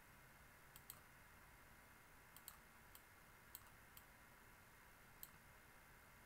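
Faint clicks of a computer mouse button, about eight scattered over a few seconds, some in quick pairs, over a low steady hiss.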